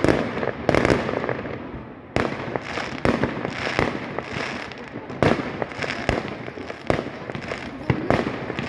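Fireworks going off: a string of sharp bangs, roughly one a second, with crackling between them.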